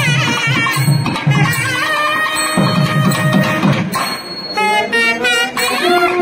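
Nagaswaram (South Indian double-reed pipe) playing a temple melody: long held notes, then a short pause and a rising, ornamented phrase. A drum beats a quick rhythm under the first part.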